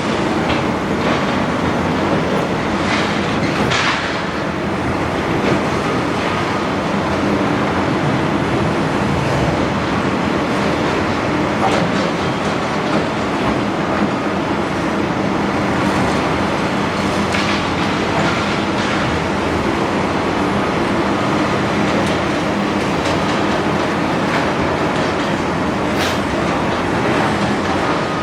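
Large Doosan excavator's diesel engine running steadily under load, with a continuous clatter of breaking concrete and debris and a few sharp knocks through it.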